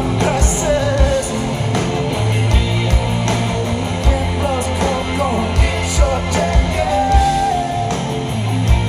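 Live rock band playing: a singer over electric guitar and drums, with a steady kick drum beat and a held sung note near the end.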